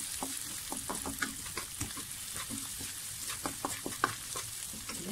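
Sliced garlic, ginger, shallots and lemongrass sizzling in oil in a wok, with frequent short scrapes and taps of a wooden spatula stirring them as the aromatics fry toward fragrance.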